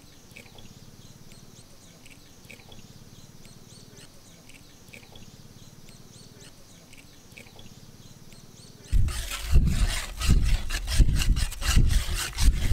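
Faint birdsong over a quiet outdoor background, then about nine seconds in a wire whisk starts beating eggs and brown sugar in a large steel bowl: loud, rapid, rhythmic metal-on-metal scraping.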